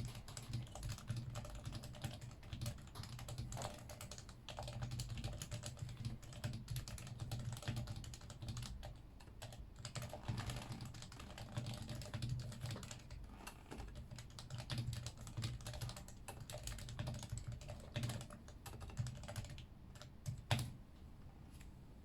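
Continuous fast typing on a Yui660c Wedge Bottom v2 keyboard with stock 45 g Topre switches and stock keycaps, a dense run of key strokes. One stroke near the end is louder than the rest, and the typing stops just after it.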